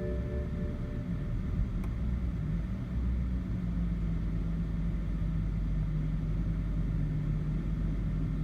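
BMW E60 530i straight-six engine idling roughly, its low rumble uneven at first and then steadier. The rough idle is from a faulty mass air flow (MAF) sensor.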